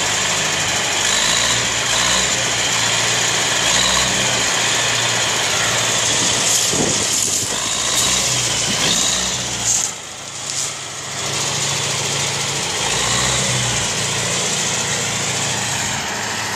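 Universal 650 tractor's four-cylinder diesel engine running under load while dragging logs, its pitch wavering with the throttle. The engine drops off briefly about ten seconds in.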